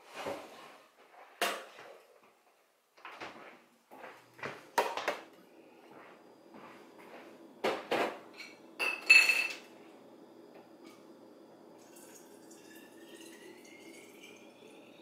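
Kitchen clatter: a run of knocks and clinks as containers and a bottle are picked up and set down on the counter, the loudest a bright clink about nine seconds in. Then water pours from a pitcher into a water bottle, its pitch rising steadily as the bottle fills.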